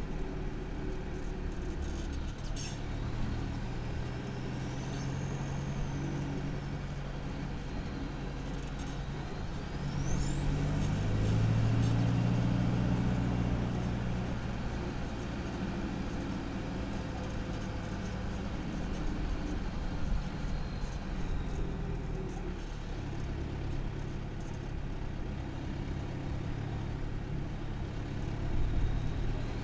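Isuzu KB300's 3.0-litre four-cylinder turbo diesel on a stock exhaust, heard from under the pickup while driving, over road and tyre noise. The engine note swells and grows louder about ten seconds in as it pulls harder, while a high turbo whistle rises and falls in pitch several times, climbing highest around the same moment.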